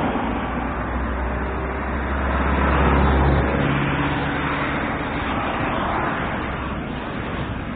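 Dense rumbling noise with a strong low hum underneath; the hum drops away about three and a half seconds in, leaving the noise.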